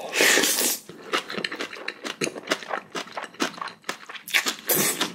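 A spoon scraping and clinking against a bowl as mixed bibimbap rice is pushed back together, a rapid string of clicks and scrapes, loudest in the first second and again near the end.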